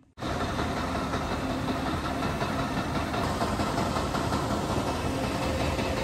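Grain-drying and handling machinery at GSI grain bins running: a steady rushing drone of fans and motors with a faint hum, cutting in sharply just after the start.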